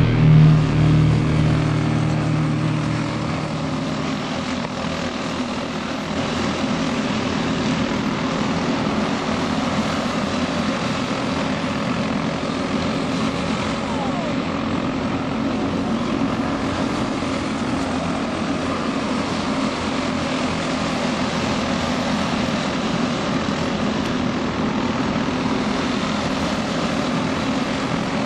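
Engines of several caged junior racing karts buzzing together in a steady drone as a pack races around the track. Music fades out in the first few seconds.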